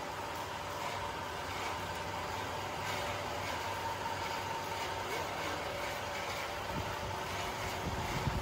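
A machine running steadily, a constant hum with a steady whine over it and a few low knocks near the end.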